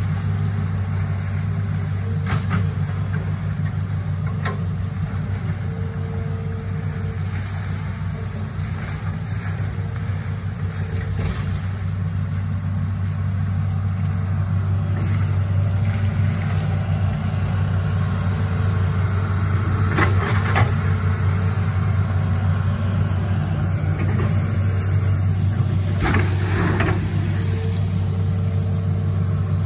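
Hitachi ZX210F amphibious excavator's diesel engine running steadily as the long arm works the bucket in river water, with a few sharp knocks scattered through.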